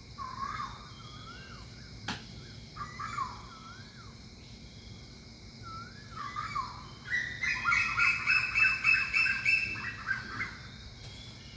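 Birds calling: three short wavering whistled phrases a couple of seconds apart, then a louder, rapid run of repeated notes lasting about three seconds near the end.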